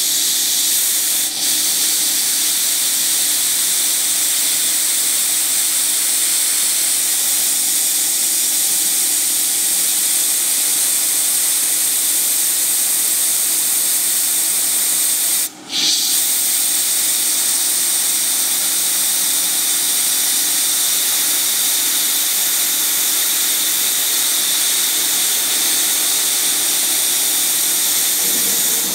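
CNC milling machine running at its highest spindle speed while a 1/16 inch end mill cuts a cam groove into a brass disk: a steady high hiss and whine. The sound breaks off briefly about halfway through.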